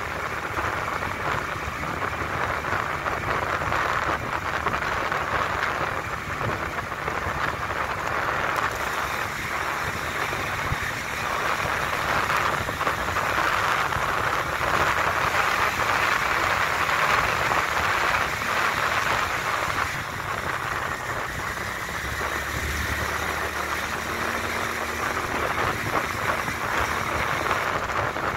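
Steady rushing noise of riding along a road: wind and tyre noise, with a brief low rumble about three quarters of the way through.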